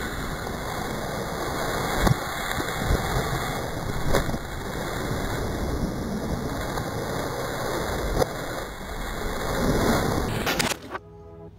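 Shredder crushing plastic soda bottles as foam sprays out: a dense rushing noise with scattered cracks and knocks. It cuts off suddenly near the end and music begins.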